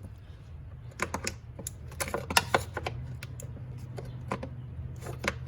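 Pliers working at plastic trim clips, a scatter of sharp irregular clicks and taps, busiest around two to three seconds in, over a steady low hum.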